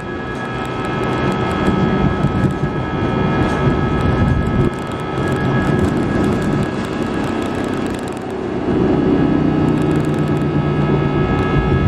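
Airbus A319 jet engines at high power heard from inside the cabin during takeoff: a loud, steady whine with several high tones over a heavy rumble. About two-thirds of the way in, a low steady hum joins.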